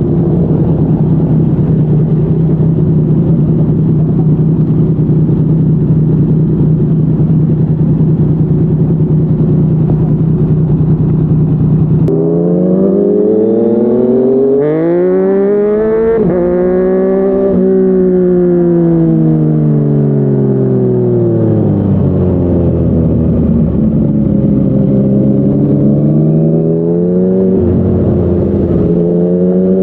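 Yamaha MT-09's inline-three engine through a Yoshimura R55 slip-on exhaust while riding: a steady drone at constant speed, then about twelve seconds in the engine note climbs, falls slowly away and climbs again as the throttle is opened and closed.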